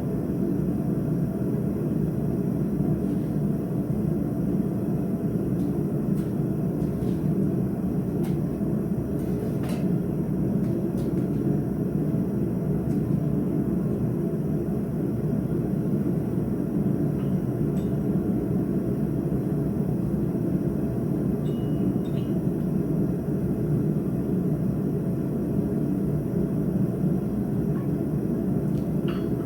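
A forge running with a steady, even roar, with a few faint clicks now and then.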